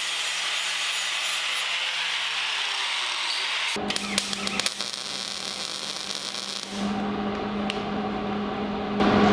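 Angle grinder grinding the steel go-kart frame, a steady high hiss; about four seconds in it gives way to the crackle of a MIG welder welding the motor mount. Near the end a steady low hum takes over.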